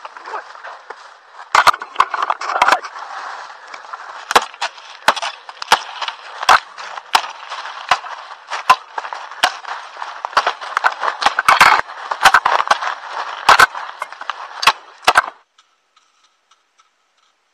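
Dry bamboo leaves and twigs crunching and snapping as a cut bamboo pole is dragged through the leaf litter underfoot, with many sharp cracks and knocks. The sound stops abruptly about fifteen seconds in.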